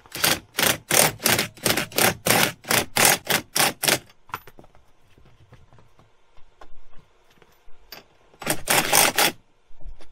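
DeWalt cordless driver driving a bolt, run in about fourteen short quick pulses over the first four seconds, then one longer run near the end, with a few light knocks of handling in between.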